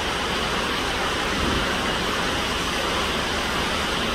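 Steady rushing roar of a fast, muddy mountain river in flood.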